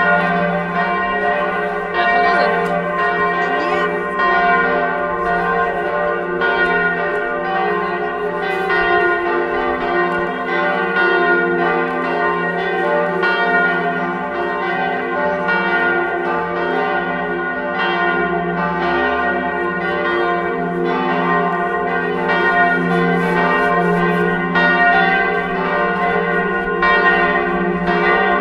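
Church bells ringing, several large bells sounding together, their strikes overlapping into a continuous peal with a strong low tone underneath.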